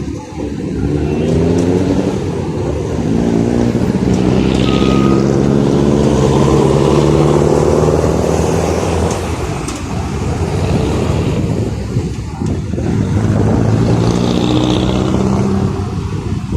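City street traffic: motor vehicle engines accelerating close by, their pitch rising as they pull away, with a long run from about three to ten seconds in and another near the end, over a steady traffic hum.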